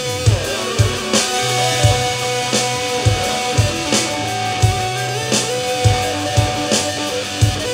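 Rock jam: guitar playing bending, sliding notes over a steady drum-kit beat of about two hits a second and low held bass notes.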